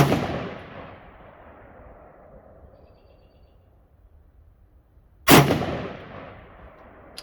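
Two single shots from an AR-15 rifle in .223/5.56, about five seconds apart, the first right at the start; each sharp crack trails off in an echo lasting about a second. Slow, deliberate shots fired as a group while zeroing the rifle's sights.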